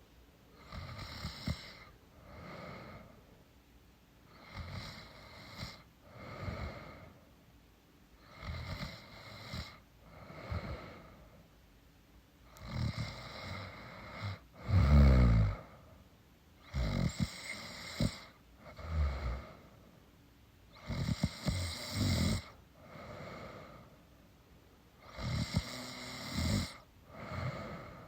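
A woman snoring in her sleep: a rasping snore on each breath in and out, a breath cycle about every four seconds. One louder, deeper snort comes about halfway through.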